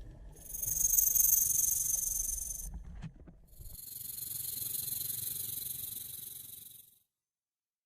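Snake hissing: two long hisses, the first about two and a half seconds and the second about three seconds, with a short pause between them.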